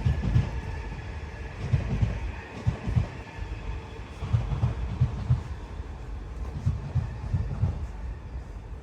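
A train passing, its wheels making clusters of low thuds over the rail joints, with a faint steady whine above.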